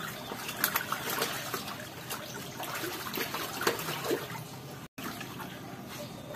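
Water trickling and splashing steadily in a tarpaulin catfish pond, with small splashy ticks. It cuts out for an instant about five seconds in.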